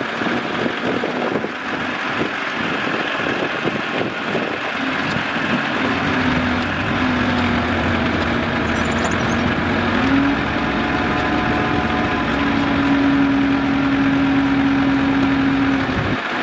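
Truck-mounted crane working off a running truck engine while lifting a pallet of concrete bricks. A steady hum sets in a few seconds in and steps up slightly in pitch about ten seconds in, holding until near the end.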